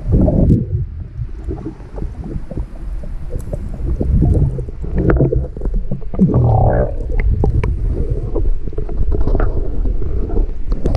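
Underwater sound of a swimmer moving through seawater, heard with the camera submerged: a muffled, low rumbling slosh with scattered clicks and pops, swelling louder about halfway through.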